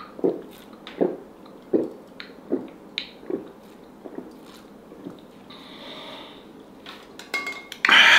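A person gulping a cold drink through a straw, about six swallows in a steady rhythm, a little under one a second. A louder noisy sound comes near the end.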